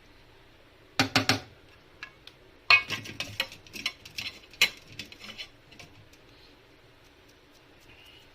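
Spoon knocking and clinking against a bowl: three quick knocks about a second in, then a few seconds of irregular clinks and taps while chopped onion and green chilli are stirred into beaten curd.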